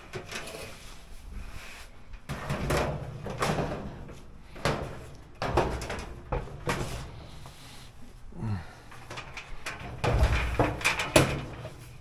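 Steel dryer drum handled and set into the dryer cabinet: a run of irregular metal knocks and scrapes, loudest about ten seconds in.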